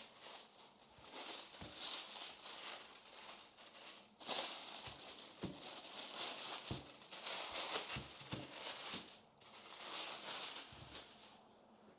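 A small plastic bag crinkling in stretches as it is handled, with scattered light clicks and knocks. It stops about a second before the end.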